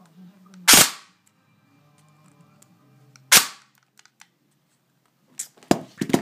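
Modified airsoft AEG gearbox with 13:1 SHS gears and a Kanzen motor cycling single shots, each a short sharp crack of the piston slamming forward: two shots about two and a half seconds apart, then three or four in quick succession near the end.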